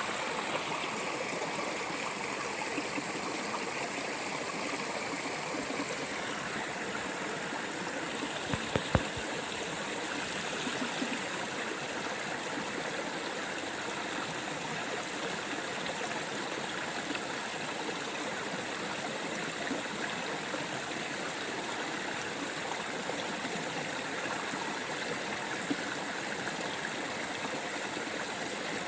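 Mountain stream running steadily over rocks, a continuous rushing and gurgling. Three sharp knocks close together about nine seconds in.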